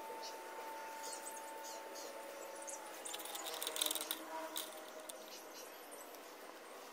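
Small metal parts clinking against a glass jar as the oil strainer spring is put into a jar of cleaning petrol: a cluster of light clinks about three to four and a half seconds in.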